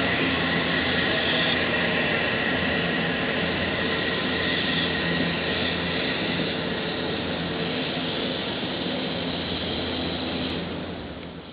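Odakyu electric train passing close by, a loud steady rush of wheels and running gear with faint humming motor tones, dying away in the last second.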